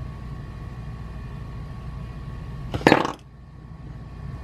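A steady low hum, broken about three seconds in by one brief, loud throaty sound from the person, like a burp or a cough.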